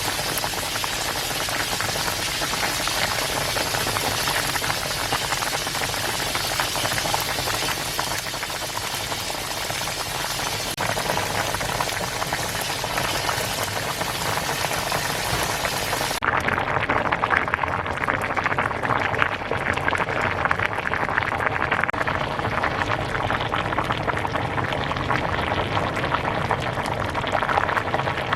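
A pot of cheonggukjang (fermented soybean stew) bubbling at a full boil, a dense steady bubbling and popping. About halfway through, the sound changes abruptly to a duller run of distinct pops and crackles.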